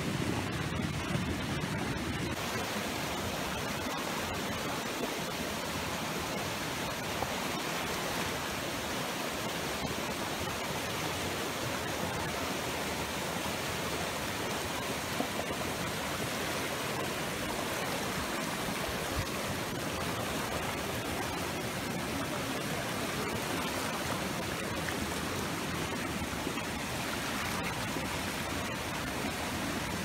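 Hot-spring stream rushing and churning over rock ledges in small cascades, a steady even rush of water.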